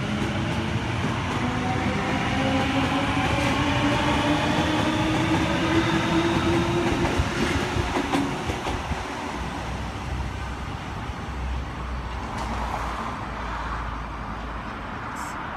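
Sydney Trains Waratah (A-set) electric double-deck train pulling out of the station, its traction motors whining and rising steadily in pitch as it accelerates away. The sound peaks about halfway through and then fades as the train recedes.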